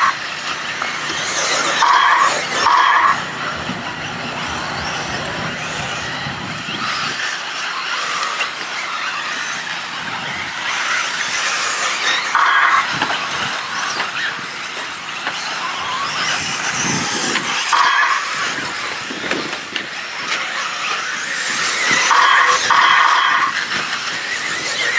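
1/8-scale electric RC buggies racing on a dirt track. Their brushless motors give several brief high-pitched whines as they accelerate, over a steady rush of tyres and noise.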